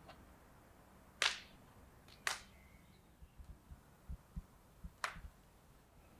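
Steel kebab skewers clicking and scraping as pieces of raw lamb fat are pushed onto them: three sharp clicks with soft low knocks in between.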